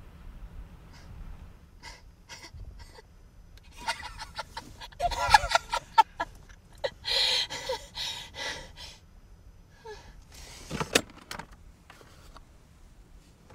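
A woman screaming and gasping for several seconds, starting about four seconds in. A few faint clicks come before it, and a single sharp knock near the end.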